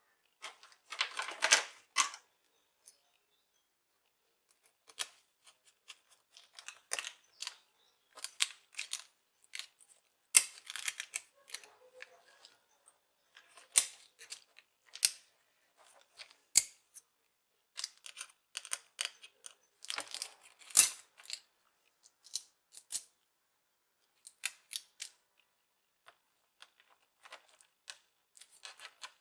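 Irregular small clicks, taps and scrapes of an HP 15 laptop's metal hinges, screws and plastic display casing being handled as the new hinges are fitted. A cluster of louder rattles comes about a second in.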